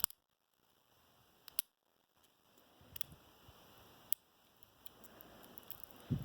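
Sparse faint clicks of lock picks working the pin stack of a Paclock 90A-PRO padlock, a few single ticks a second or more apart, with a soft low thump near the end.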